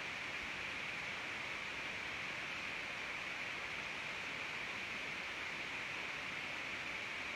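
Steady, even hiss with nothing else over it, the background noise of the recording with no voice or sobbing.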